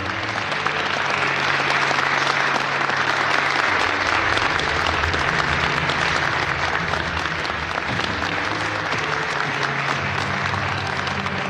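Audience applauding at length, the clapping breaking out at once, with music playing low underneath.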